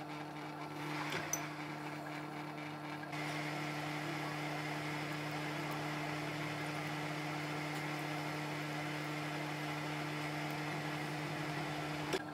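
Manual metal lathe running with a steady hum while the chuck spins and a tool cuts a thin steel rod for a firing pin. The sound turns slightly louder and brighter about three seconds in, and there is one sharp click near the end.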